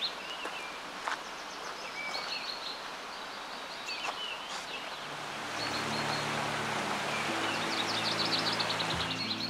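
Songbirds singing quick, repeated trilling phrases over the steady rush of a shallow stream. Soft music with low held notes comes in about halfway through.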